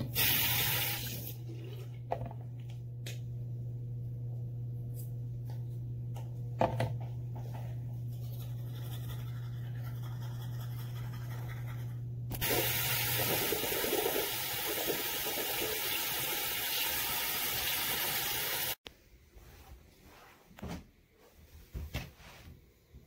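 Water rushing in a bathroom: a short burst at the start, then loud steady rushing from about halfway through that cuts off suddenly, over a steady low hum.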